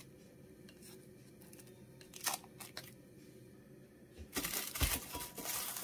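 Heat-resistant plastic film crinkling as it is pulled from the roll and pressed into a glass baking dish. The crinkling starts about four seconds in, after a quiet stretch with a few light ticks.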